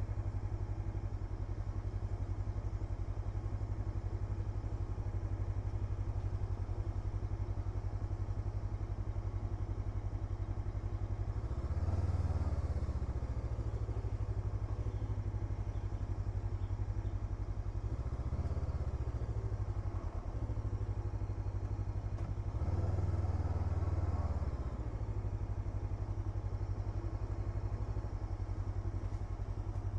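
Hunter Maverick 500 motorcycle engine running steadily at low speed, with three brief throttle openings, the longest near the end.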